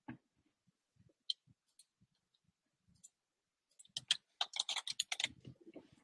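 Computer keyboard being typed on: a few faint single key clicks, then a quick run of key clicks about four seconds in.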